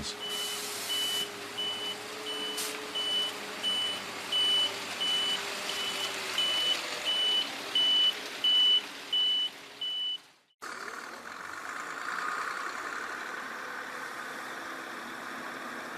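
A heavy truck's reversing alarm beeping steadily, about three beeps every two seconds, over its running diesel engine. The beeping stops with a brief break about ten seconds in, after which a truck engine runs steadily.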